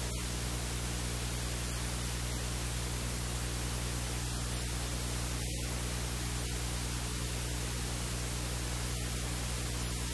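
Steady hiss and static with a low electrical hum, unchanging throughout; no other sound stands out.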